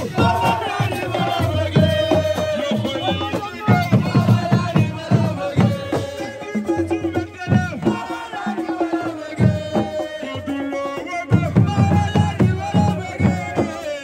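Music: fast hand-drum beats under a wavering melodic line.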